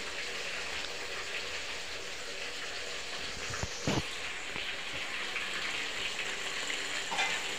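Eggplant and potato pieces sizzling steadily in oil in an aluminium pot on a gas stove, with a single soft knock a little before the midpoint.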